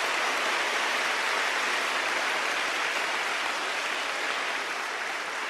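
Audience applause, a steady even clapping that slowly dies down toward the end.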